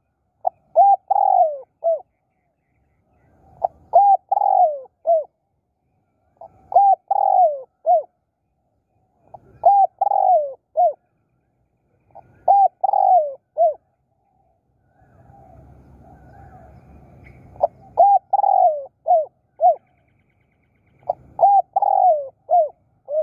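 Spotted dove cooing: a repeated phrase of several coos, given about seven times at roughly three-second intervals.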